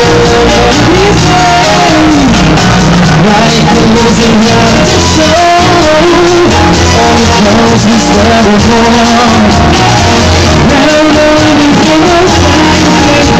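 Loud music with a singing voice, playing without a break.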